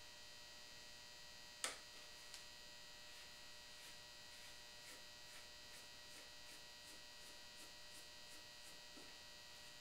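Near silence over a steady electrical hum, with a single sharp click about two seconds in and faint, regular ticks about three a second after that, as a hand screwdriver turns a small wood screw out of the rifle's wooden stock.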